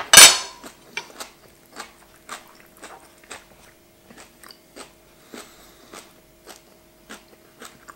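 Close-miked chewing of roast chicken: wet mouth smacks and small clicks at irregular intervals, with one loud, noisy smack just after the start.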